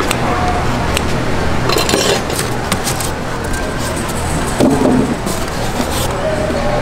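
Market food-stall background: a steady low hum, with scattered light clicks and clinks of utensils and a paper bowl being handled as the okonomiyaki is packed. There is a brief louder rustle a little before the end.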